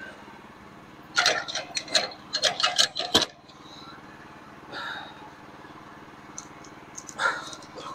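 A quick run of sharp knocks and clatter, about a second in and lasting about two seconds, over a steady low machine hum, as lumber is handled on a sawmill bed. Two single knocks follow, near the middle and near the end.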